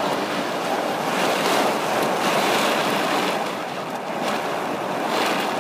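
Torrential rain beating on a car's roof and windshield, heard from inside the car as a loud, steady rush.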